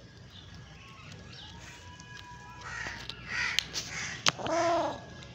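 A few harsh animal calls, starting about halfway through, the last one rising and then falling in pitch, with two sharp clicks among them.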